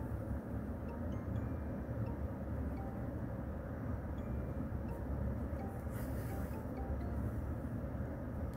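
Steady low background rumble, with a brief soft rustle about six seconds in as embroidery thread is drawn through the crocheted stitches.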